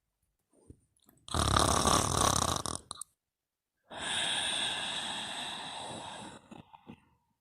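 A sleeper snoring: a loud snore on the in-breath lasting about a second and a half, then after a short pause a long, breathy out-breath that slowly fades over about two and a half seconds.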